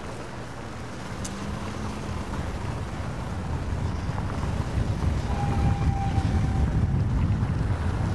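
Low wind rumble on the microphone and road traffic noise from a moving tracking shot, growing steadily louder.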